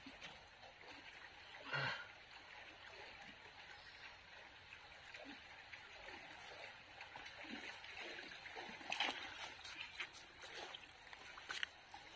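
Shallow stream water trickling over stones, with a few brief splashes and small knocks as hands reach into the water among the wet rocks, the loudest about two seconds in and a cluster near the end.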